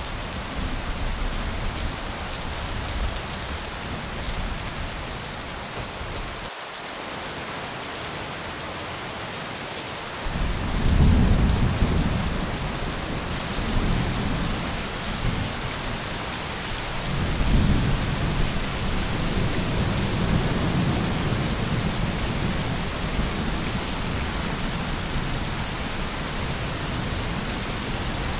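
Thunderstorm: steady rain with rolling thunder. A low rumble cuts off suddenly about six seconds in; thunder rolls back in about ten seconds in and swells again a little past the halfway point.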